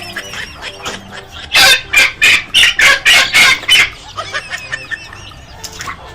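Chicken calling, with a quick run of about eight loud squawks from about one and a half seconds in to about four seconds in, and quieter calls around them.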